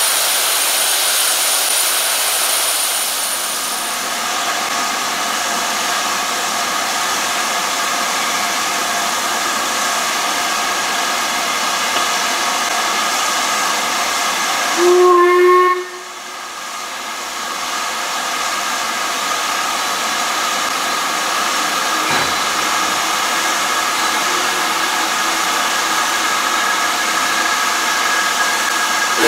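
LMS Black 5 steam locomotive 45212 hissing steadily as steam escapes from it, with one short whistle blast about halfway through.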